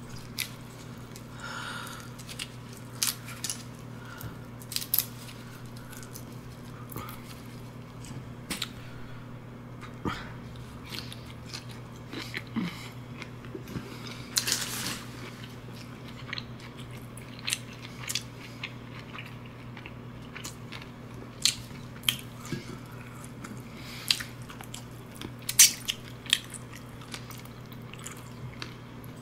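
Close-miked sounds of a person eating seafood and chicken feet: chewing and biting, with irregular sharp clicks and crunches over a steady low hum.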